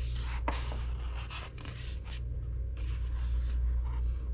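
Paper rustling and scraping in short irregular bursts, like the pages of a picture book being handled and turned, over a steady low hum.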